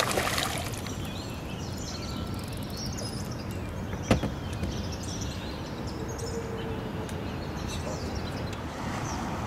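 Outdoor ambience with small birds chirping here and there over a steady low rumble of background noise. A single sharp click sounds about four seconds in.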